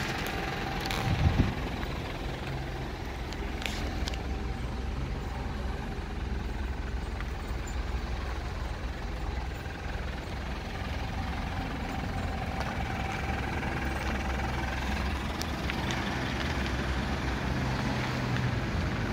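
Mitsubishi L200's 2.5-litre four-cylinder diesel idling steadily, with a thump about a second in.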